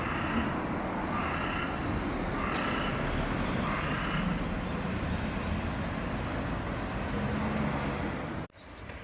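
Steady outdoor background rumble and hiss, like distant traffic, with a few faint short pitched calls or voices in the first half; it cuts off abruptly near the end.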